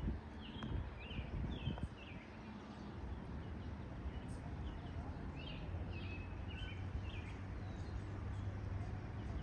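Small birds chirping in short, quick calls, in bunches, over a steady low rumble of outdoor background noise.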